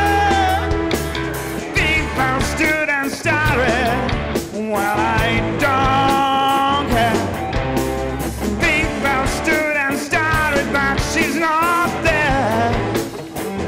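Live blues-rock band playing, with drums, bass and a wavering, bending lead melody over a steady groove.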